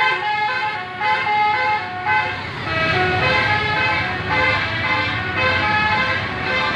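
Bus 'telolet basuri' musical horn playing a quick stepping melody, with the bus's engine and road noise building about two and a half seconds in as it passes.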